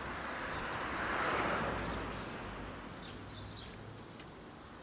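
A car passing on a wet street: tyre hiss with a low rumble swells about a second in and then fades away. A few small birds chirp briefly.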